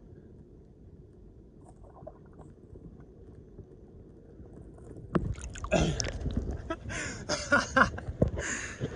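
Muffled low rumble of water heard through a waterproof camera held underwater. From about halfway, water splashes and sloshes against the camera in four or five irregular bursts.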